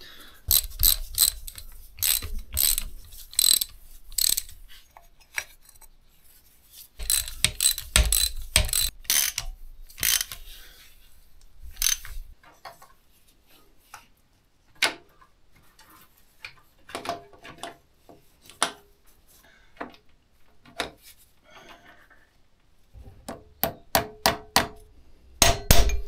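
Bursts of quick metallic clicks and knocks from hand tools and parts being worked on a Kubota B7100 tractor's gearbox during reassembly. The clicks come thick in the first few seconds, again a little later and near the end, with only scattered knocks in between.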